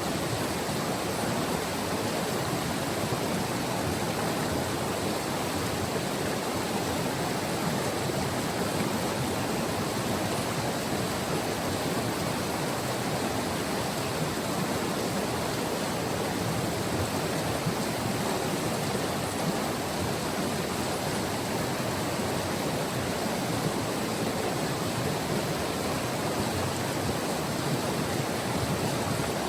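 The White River's flowing water rushing steadily, an even, unbroken rush with no change in level.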